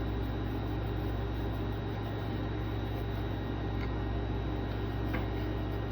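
Steady low hum and hiss of room background noise, with two faint small ticks near the end.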